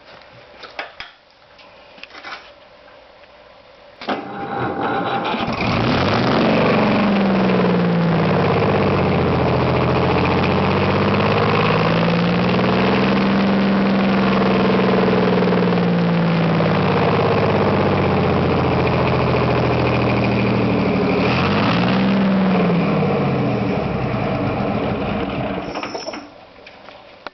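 Rebuilt marine diesel engine started about five seconds in, then running for some twenty seconds with its speed gently rising and falling before it is shut down near the end: a test run after the rebuild, with the oil pressure being watched.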